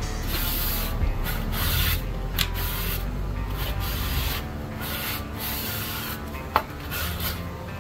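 Cloth rag rubbed in back-and-forth strokes over a stained pine board, wiping off red wood stain, about one stroke a second. A single sharp tap near the end.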